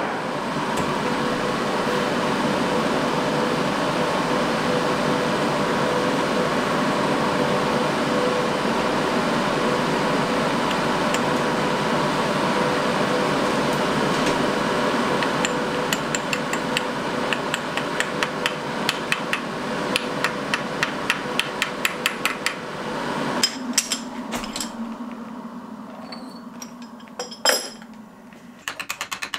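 Metal lathe running with a steady hum while turning a steel sprocket held in its chuck. From about halfway there is a regular ticking, several ticks a second. About three quarters through the lathe stops, and a few metal clinks and one sharp knock follow as the chuck is opened.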